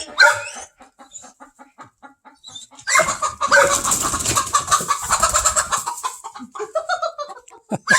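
Hens clucking softly in a steady run of short clucks, then about three seconds in a sudden loud flurry of squawking and wing flapping from a startled chicken, lasting about three seconds before settling.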